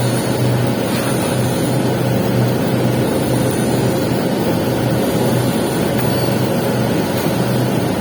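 Steady crackling hiss of an arc-welding arc laying the capping pass on a pipe joint, with a low steady hum underneath.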